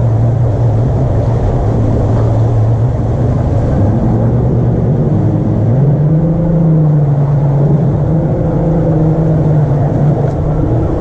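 Boat's outboard motor running steadily, then given more throttle about halfway through, its pitch stepping up and holding higher.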